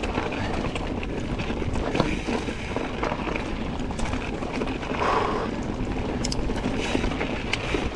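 Wind rushing over the microphone while a mountain bike rolls along a rocky trail, with a few sharp clicks and knocks from the bike and trail.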